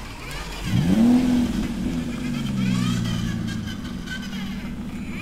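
Battery-powered toy vehicle playing its electronic engine sound: a rising rev about a second in, settling into a steady pitched hum.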